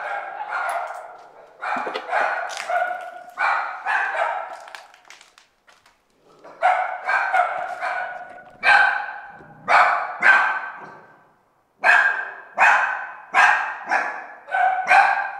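Puppies barking, high-pitched yapping barks in quick runs of several barks with short pauses between the runs.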